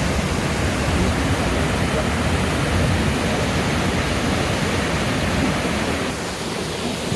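High Force waterfall, the River Tees dropping 21 metres into its plunge pool: a steady, loud rush of falling water, easing slightly near the end.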